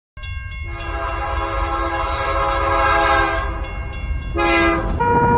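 Multi-note train horn sounding a long chord blast of about three seconds, then a second short blast about four and a half seconds in, over a low rumble.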